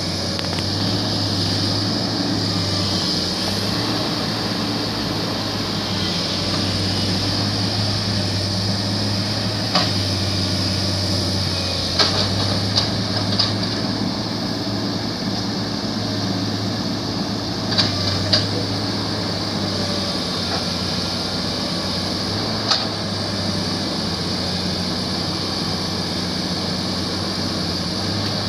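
Heavy construction machinery engine running steadily, with a few short sharp knocks scattered through the middle.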